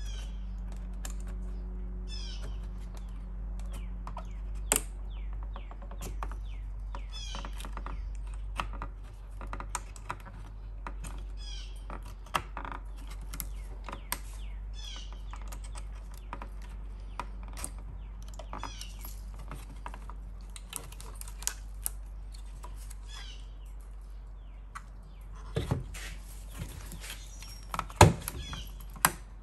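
Plastic clips and housing of a BMW E36 M3 instrument cluster clicking and creaking in scattered small clicks as gloved hands work them loose, ending in a run of louder snaps, the loudest near the end as the circuit board comes free. A bird chirps repeatedly in the background over a steady low hum.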